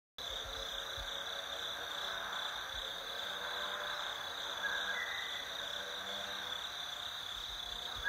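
Forest insects, crickets or similar, chirping in a steady high drone. A short two-note rising chirp sounds about five seconds in.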